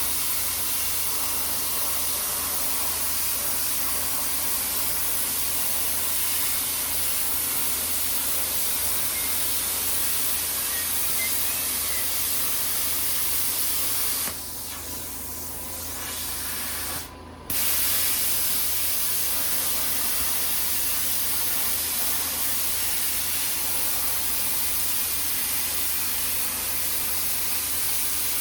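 Steady hiss of a compressed-air tool spraying. It eases off about halfway through, stops for a moment just after, then starts again.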